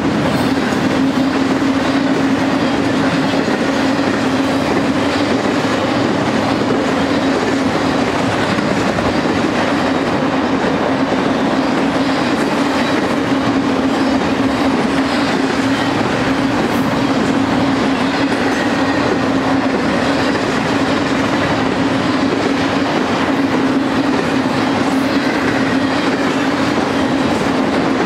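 Intermodal freight train cars, trailers on spine cars and double-stack containers, rolling past: a steady clatter of steel wheels on the rails with a constant humming tone.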